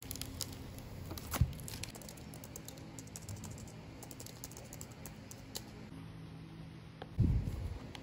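Typing on a compact iPad keyboard: a steady patter of soft key clicks. A sharper knock comes about a second and a half in, and a dull thump near the end.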